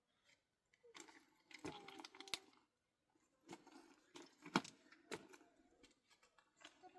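Scattered sharp knocks and clicks of objects being handled, the loudest about four and a half seconds in, with faint short tones between them.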